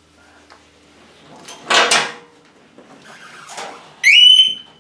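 Metal clunks and rattles as the sissy bar is worked onto the motorcycle's docking hardware, loudest about two seconds in, then a short squeal near the end that rises in pitch and holds.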